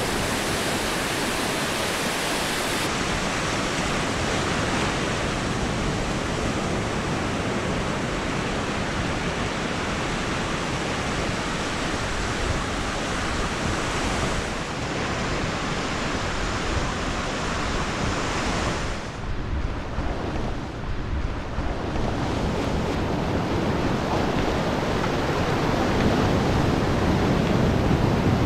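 Ocean surf breaking and washing up the beach, with wind buffeting the microphone: a steady, dense rush of noise that thins briefly about two-thirds of the way through.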